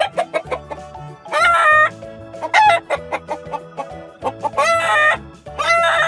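Chickens calling: four loud, pitched calls of about half a second each, over light background music.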